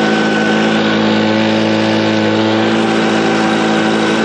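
Stihl BG 56 C gas leaf blower's two-stroke engine held at full throttle, running steadily at full speed. It no longer bogs down now that its carbon-clogged spark arrestor screen has been cleaned.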